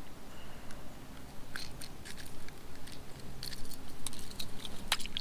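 Irregular crackling and clicking handling noise, heard as many short sharp clicks that come thicker from about a second and a half in.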